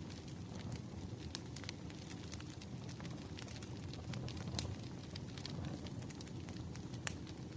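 Wood fire burning, crackling with frequent irregular sharp pops over a low steady rumble.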